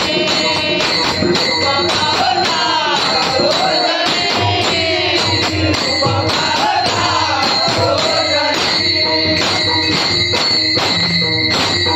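Men singing a Konkani bhajan in chorus while small brass hand cymbals (taal) clash in a steady rhythm, about three strikes a second, their ringing carrying over the singing. The singing fades about eight seconds in and the cymbals play on.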